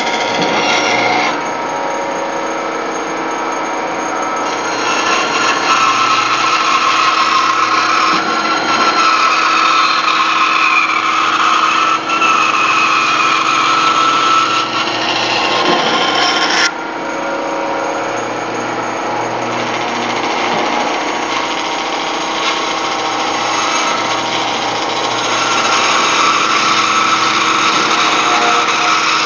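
Bandsaw running and cutting along a curved line through a thick wooden table-leg blank, a steady loud sawing noise. About two-thirds of the way through, the level drops suddenly and the sound thins before building back up.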